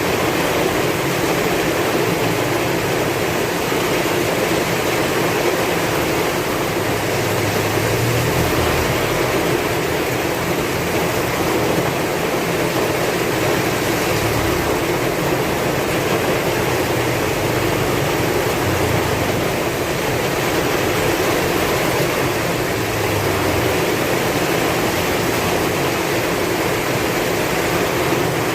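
Heavy rain falling in strong wind: a steady, dense rush of rain noise with brief low swells now and then.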